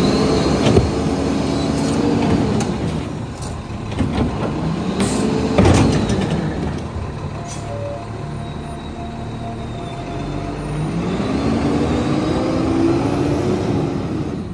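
Lodal EVO garbage truck's diesel engine running and revving up and down about three times, with two sudden sharp noises about one and six seconds in.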